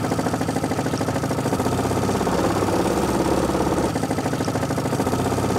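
Engine on an electrofishing boat running steadily, a fast even pulse over a low hum, getting a little louder about two seconds in.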